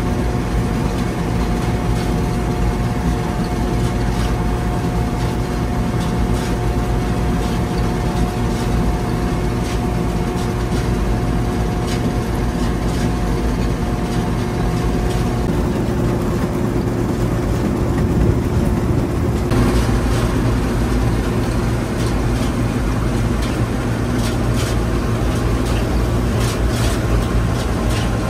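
Bizon Super Z056 combine harvester's six-cylinder diesel engine running steadily at working speed. A thin whine rides on it and stops about halfway through, and a higher rattle and ticking joins in from about two-thirds of the way in.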